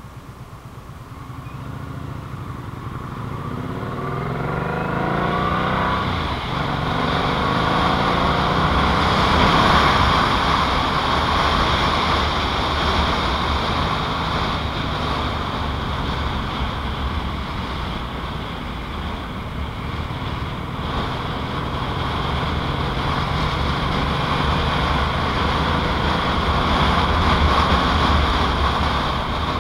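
2007 Yamaha Royal Star Tour Deluxe's V4 engine pulling away, its pitch rising over the first few seconds as it gets louder. It then gives way to a steady rush of wind and road noise at speed.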